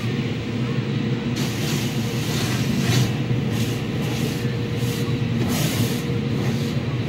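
Car wash water jets spraying the car, heard from inside the cabin as irregular surges of hiss and pelting on the windshield and body, starting about a second and a half in, over a steady low machinery hum.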